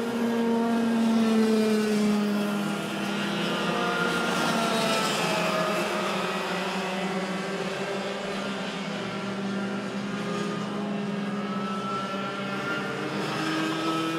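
Several two-stroke racing kart engines running at high revs as a pack of junior karts circulates, their pitches rising and falling as the karts brake, accelerate and pass.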